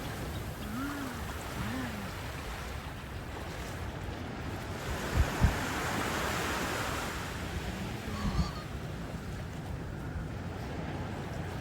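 Ocean surf: waves washing onto the beach, the rush swelling to a peak about midway and easing off again. Two sharp low thumps stand out about five seconds in.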